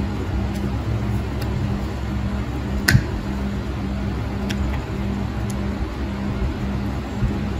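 Steel nail nippers snapping through a thickened toenail: a few sharp clicks, the loudest about three seconds in. A steady low hum runs underneath.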